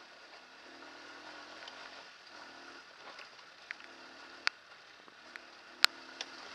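Hartford VR150's 150cc air-cooled single-cylinder engine running over a rough track, its note coming and going in short spells as the throttle is eased on and off. Several sharp knocks and clicks from the bike jolting over loose stones come in the second half, the loudest about two-thirds of the way in.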